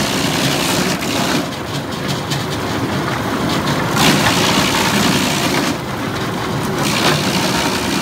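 Industrial disc wood chipper running under load while chipping, its chips pouring up the discharge chute. Loud, steady machine noise with a few short surges of hiss.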